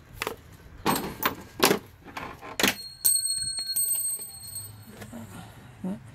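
A few sharp knocks and clatters as the old rubber intake hose is set down on concrete and its hose clamp is worked off. A high, steady ringing tone comes in a little before the midpoint and lasts about two seconds.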